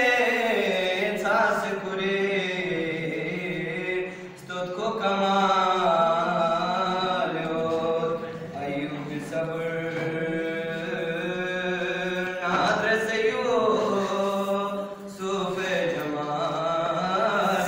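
A solo male voice chanting a Balti qasida without accompaniment, through a loudspeaker, in long held and ornamented melodic phrases. Short pauses for breath come about four seconds in and again near fifteen seconds.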